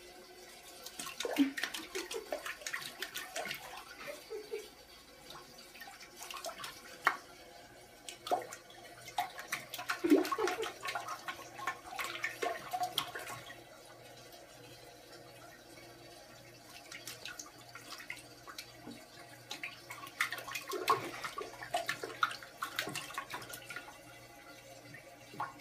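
Water in a toilet bowl splashing in irregular spells as a Bengal kitten paws and slaps at it, while the bowl is swirling from a flush.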